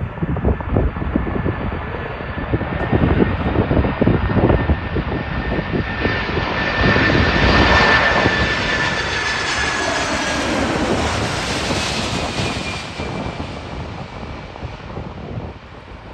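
Airplane landing in strong wind: its engine whine grows louder to a peak about eight seconds in as it passes, then slowly fades. Gusts buffet the microphone through the first half.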